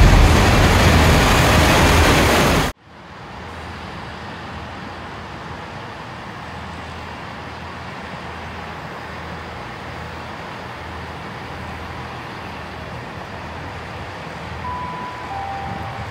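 A loud rush of sound cuts off abruptly about three seconds in. Steady low hum and rumble of a railway platform follow, with a train standing at the platform. Near the end a two-note falling chime sounds over the station public address, the signal that an announcement is coming.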